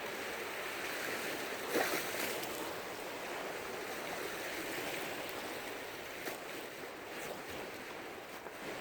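Small waves washing steadily onto a sandy beach, swelling briefly about two seconds in.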